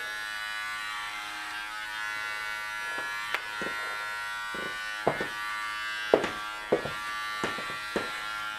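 Corded electric hair clippers running with a steady buzz as they cut hair close to the scalp. From about three seconds in, a series of short sharp clicks and knocks sounds over the buzz.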